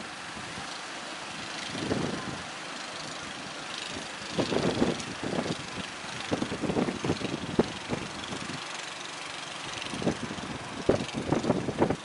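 Engine of a small outrigger fishing boat running as it crosses breaking surf, mixed with the rush of waves and wind on the microphone that swells loud several times.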